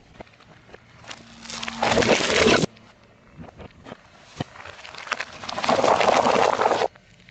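Objects crunching and crackling as a car tyre rolls over and crushes them, in two loud stretches that each cut off abruptly, with scattered small cracks between them.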